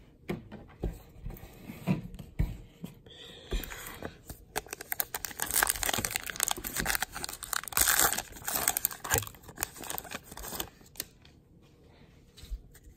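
A Topps Gypsy Queen card pack wrapper being torn open and crinkled: a dry, crackling rip and rustle lasting several seconds, after a few light knocks of handling.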